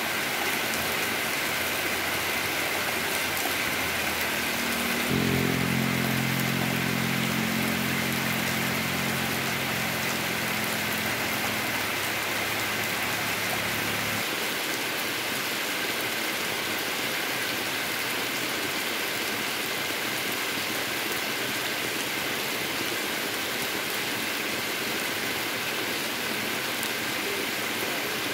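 Heavy rain pouring steadily onto an asphalt road and surrounding leaves. A low steady hum joins about five seconds in and cuts off abruptly about fourteen seconds in.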